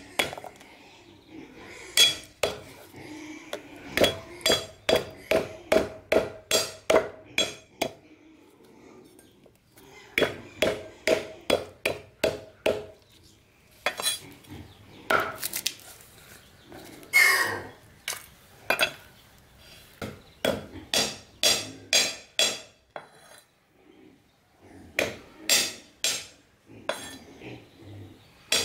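Runs of sharp metal-on-surface strikes during food preparation, about two a second, with a short ringing tone after each hit and brief pauses between the runs.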